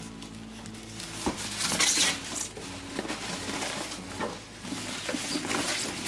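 Plastic wrapping rustling and crinkling as it is pulled off a coffee maker, in uneven bursts, with a single light knock about a second in.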